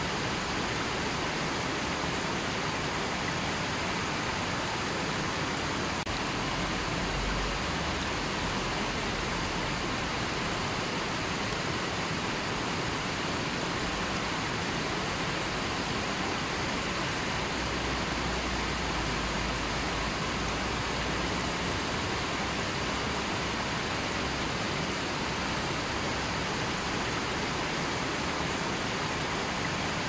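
Rocky mountain river rushing over and around boulders: a steady, unbroken rush of flowing water.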